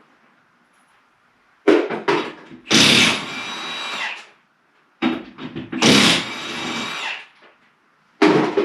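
Power impact wrench running lug nuts off a skid steer wheel in two bursts of about two seconds each. Each burst starts with a quick rattle, then the tool spins steadily.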